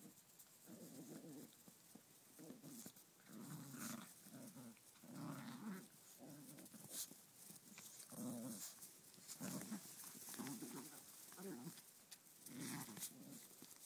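Dogs growling in play while tugging on a toy, in short rough bursts repeated irregularly, fairly faint.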